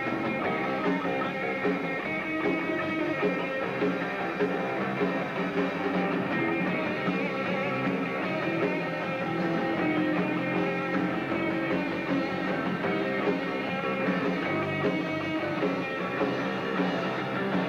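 Live rock band playing, with electric guitar and drums.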